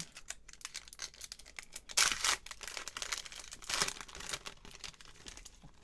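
Foil wrapper of a trading-card booster pack crinkling and tearing open by hand, with many small crackles and two louder bursts about two seconds in and again just before four seconds.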